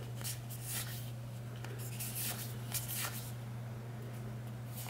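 Trading cards being flipped through by hand: several soft swishes and flicks as the glossy card stock slides card over card, over a steady low hum.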